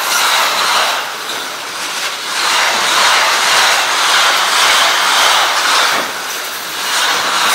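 Container freight train passing close by: a steady rush of wheels on rail that dips in loudness about a second in and again near six seconds as the wagons go by.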